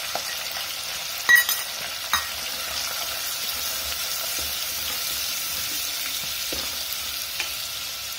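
Ground spices sizzling in hot oil in a steel pot while a spoon stirs them, as the masala roasts. The spoon knocks sharply against the pot about a second in and again shortly after.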